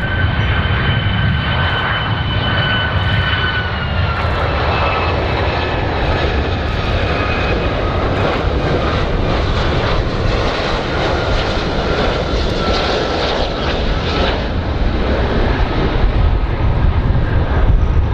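Boeing 757 airliner on landing approach: its turbofan engines give a high whine over a steady low rumble. The whine falls slowly in pitch through the first half and then fades.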